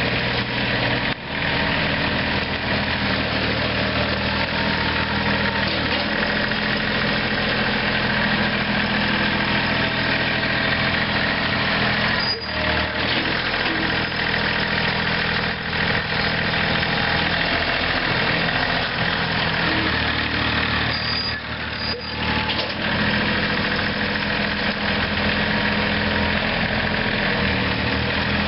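Kubota three-cylinder diesel engine of a 2008 Bobcat CT230 compact loader tractor running steadily, its note shifting slightly a few times, with a few brief dips in level.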